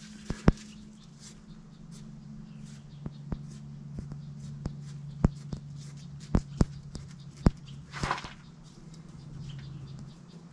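Scattered sharp clicks and taps, about ten in all, over a steady low hum, with a short scraping hiss about eight seconds in.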